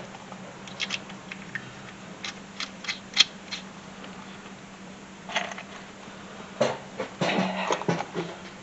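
Loose metal bolts clinking in a plastic bucket as they are picked out by hand: scattered short sharp clicks, with a busier clatter near the end, over a steady low hum.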